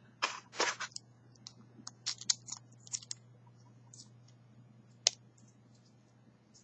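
Small clicks and scrapes of a CR1616 coin-cell battery being pressed into the battery holder of a Honda remote key and pushed against its contacts, with one sharp click about five seconds in.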